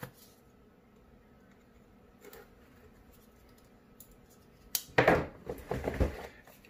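Handling of a Samsung Galaxy S20 Ultra's cardboard retail box: a light knock at the start, then from about five seconds in a run of scrapes and rubs as the lid is drawn off the base.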